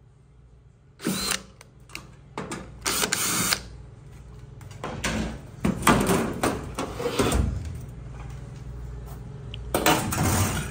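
Power drill running in several short bursts, driving out the screws that hold a dryer's panels on.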